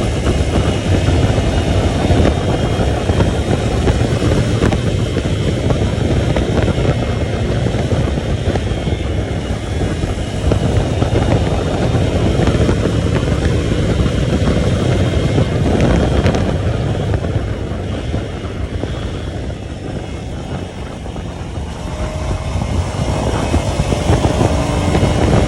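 Motorcycle engine running on the move, heavy rumble mixed with wind and ground noise; it eases off about two-thirds of the way through and picks up again near the end.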